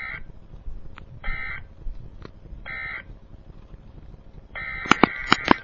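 Emergency Alert System digital data bursts: three short, harsh buzzing bursts about a second and a half apart, the end-of-message code that closes the alert. A longer burst of the same tone begins about four and a half seconds in, with several sharp pops over it.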